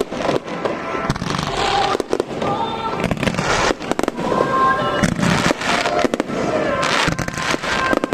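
Fireworks bursting in a dense barrage, with many bangs and crackles following one another closely.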